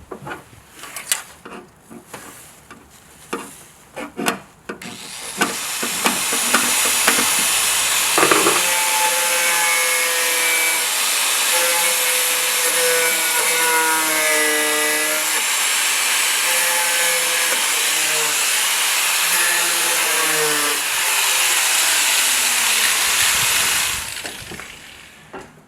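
A few clicks and knocks, then an angle grinder cutting rusted sheet metal out of the truck bed: a loud hiss with a whine whose pitch wavers and sags under load. Near the end the whine falls as the disc winds down.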